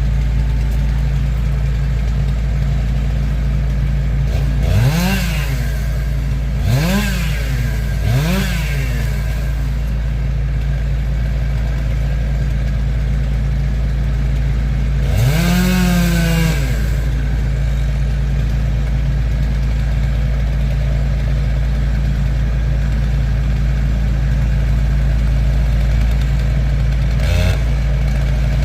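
An engine idling steadily, with a chainsaw revved up and let back down three times in quick succession about five to eight seconds in, and once more, a little longer, about fifteen seconds in.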